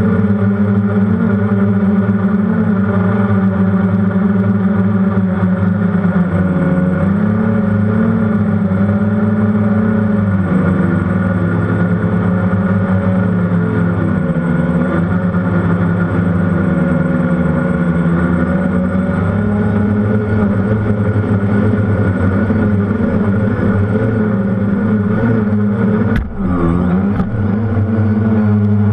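F330 quadcopter's motors and propellers humming steadily, heard from the camera on board, the pitch shifting up and down as it manoeuvres. A single knock about 26 seconds in as it comes down onto the grass.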